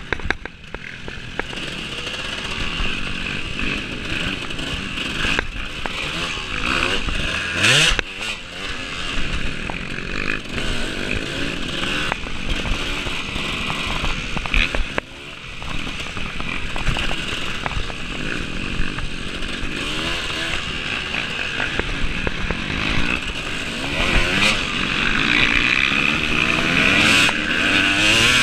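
Off-road racing motorcycle engine revving up and down hard through the gears, its pitch rising and falling again and again, with frequent short knocks mixed in.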